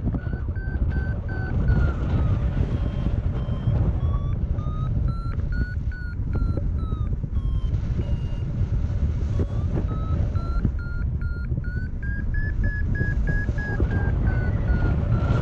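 Paragliding variometer giving its climb tone: a quick run of short beeps whose pitch steps up and down, highest a little past the middle, the sign that the glider is climbing in rising air. Loud wind rushing over the microphone runs underneath.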